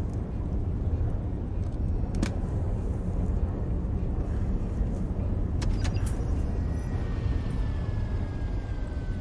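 Steady low rumble of a submarine's interior, with a few sharp clicks and, near the end, a faint tone that slides slowly downward.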